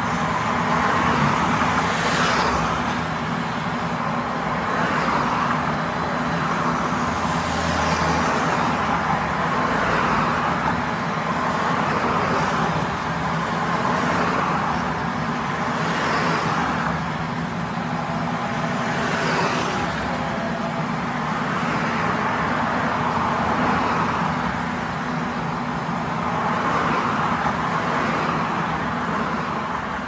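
Metro train running: a steady rumble with a low hum underneath, and a hiss that swells every two to three seconds.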